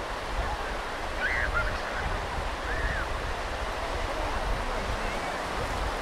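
Sea surf washing into the shallows of a sandy beach as a steady rush of noise. Two short high calls rise and fall over it, about a second in and again near three seconds.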